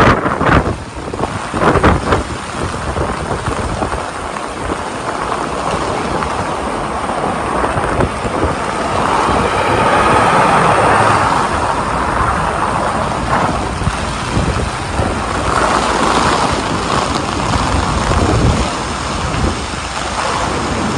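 Heavy rain falling on a busy city street, mixed with traffic going by on wet pavement. The hiss swells for a few seconds about ten seconds in.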